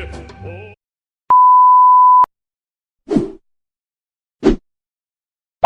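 A single steady, high-pitched beep lasting about a second, the classic censor bleep sound effect. A tail of music ends just before it, and two brief short sounds follow.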